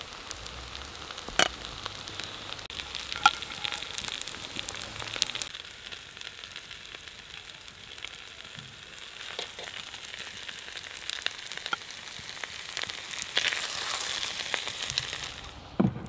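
Hot fat sizzling and crackling in a steaming plov cauldron as the rice is scooped out with a metal skimmer, with a few sharp clinks of the skimmer. The sizzle stops abruptly near the end, and a dull knock follows as a plate is set down on a wooden table.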